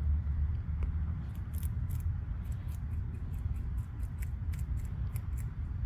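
Cottontail rabbit chewing romaine lettuce: quick crisp crunches, about three a second, starting about a second in, over a low steady rumble.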